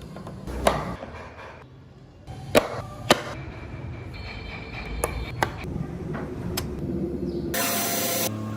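Hand tools knocking sharply against wood, about six separate strikes spread out, then a brief loud burst of a power tool running near the end.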